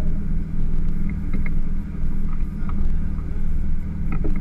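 Motorboat engine running steadily, a constant low drone.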